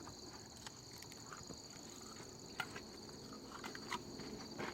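A steady, high-pitched chorus of insects humming continuously, with a few faint clicks and knocks scattered through it.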